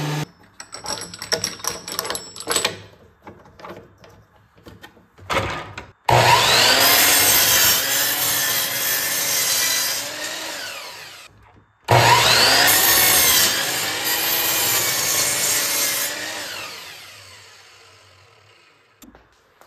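Sliding miter saw making two cuts through a glued-up pallet-wood bench top to trim its ends. Each time the motor whines up to speed, the blade cuts through the wood, and the saw winds down; the second time it fades out slowly over a few seconds. Light knocks and rattles come before the first cut.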